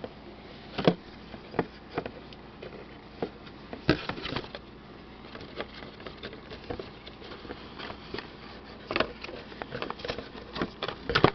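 Handling noise from a boxed hair-straightening flat iron being pulled out of its box and turned over: scattered clicks, knocks and rustles, with a cluster of sharper knocks about four seconds in and more near the end.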